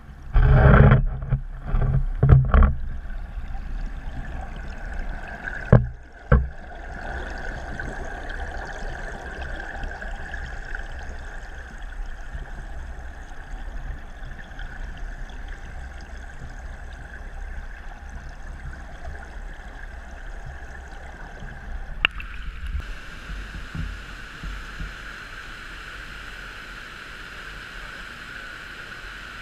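Fast stream water rushing, heard through a camera held underwater, with several heavy knocks and thumps in the first few seconds and two more a few seconds later. Near the end, after a click, the rush turns brighter and hissier, like the open rapids.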